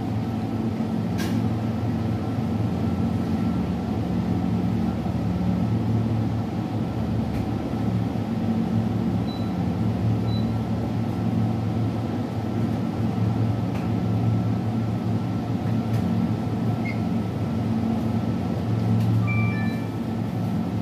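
Steady low mechanical hum of a convenience store's open refrigerated display cases, with a thin high tone above it.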